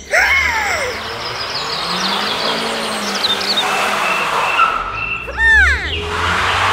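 Dubbed car sound effects: a motor running under a steady hiss, with screeching tyre squeals at the start and a louder one about five and a half seconds in, as the miniature tractor's wheels spin in the sand.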